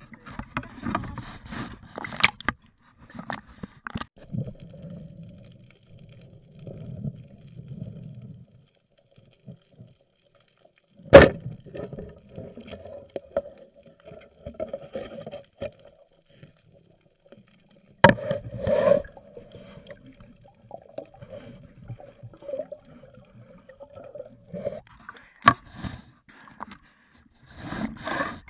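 Water sloshing and bubbling around an underwater camera, with two sharp knocks about seven seconds apart that are the loudest sounds, and a faint steady hum underneath through the middle stretch.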